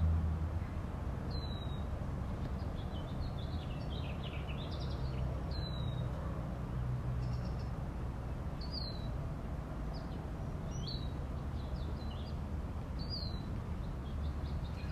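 Wild birds calling: a short, sharp falling call repeats five times a few seconds apart, with softer chirps between, over a steady low hum.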